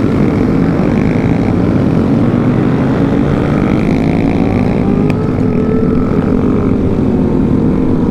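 Small mini-motorcycle engines running while riding in a group, under heavy wind noise on the microphone; an engine's pitch rises and falls around the middle as a bike revs.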